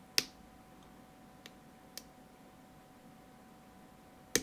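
Sharp metallic clicks from a hook pick working the pin stacks of a PacLock UCS 3A padlock under tension: a loud click just after the start, two fainter ones in the middle and another loud one near the end. Clicks like these are pins setting at the shear line.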